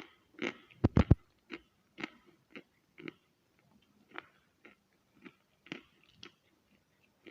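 A person chewing chalk: crunching bites about two a second that grow fainter as the chalk is ground down, with a few heavy low thumps about a second in.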